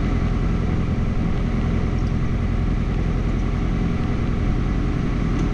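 Single-engine light aircraft's piston engine idling steadily on the ground, heard from inside the cockpit, with the even low throb of its firing pulses.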